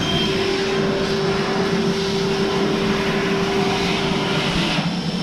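Steady mechanical hum with a rushing noise over it, cutting off sharply near the end.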